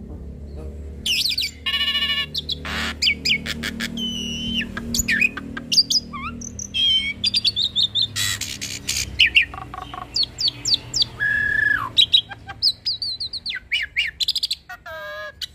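Hybrid starling (Nias hill myna × Asian pied starling) singing a varied song packed with mimicked phrases: quick whistled notes sliding up and down, sharp clicks, a buzzy rattle about two seconds in and a held whistle later on, over a steady low hum.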